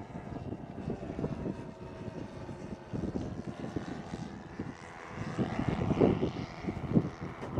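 The engines of a 1/10-scale radio-controlled B-17 model running in flight, a steady multi-tone propeller drone that drifts slightly in pitch. Gusty wind buffets the microphone underneath.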